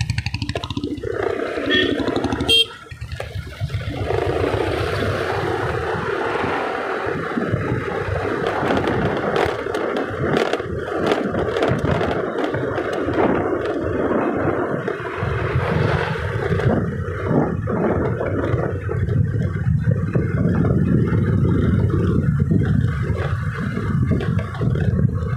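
Wind buffeting the microphone while riding a moving scooter, a steady loud rush with the scooter's engine running underneath. The rush drops out briefly about three seconds in.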